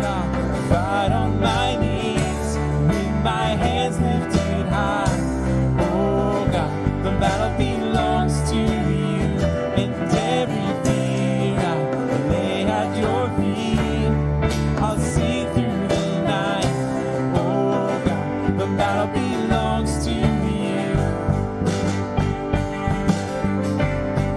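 Contemporary worship band music: guitar and bass over a steady beat, with a singer's voice coming in at times.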